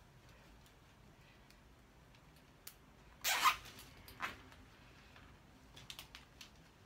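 A plastic cable tie pulled tight through its ratchet head to cinch wire lattice panels together: a short zipping rasp about three seconds in, a shorter one about a second later, then a few light clicks.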